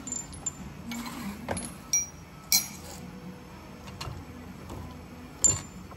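Metal tools and differential parts clinking and knocking on a workbench: a handful of separate sharp clinks, the loudest about two and a half seconds in.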